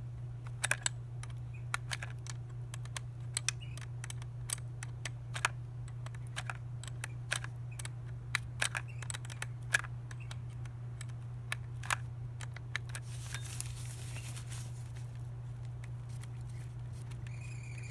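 Irregular small metallic clicks and taps of an 8 mm box wrench being worked on tight tail-light bracket bolts, over a steady low hum. A cricket starts chirping near the end.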